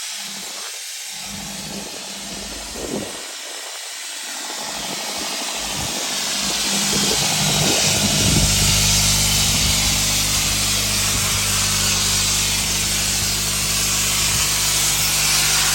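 Abrasive blasting nozzle hissing, a steady rush of compressed air and media that grows louder about seven seconds in, over the steady hum of a running engine.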